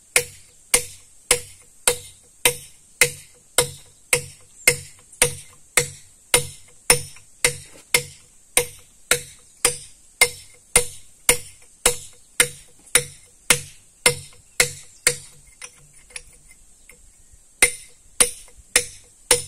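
A hand hammer striking a steel chisel into rock in steady blows, about two a second, each with a metallic ring. The blows pause for about two seconds near the end, then resume. This is the chiselling out of the wedge pockets for splitting the stone.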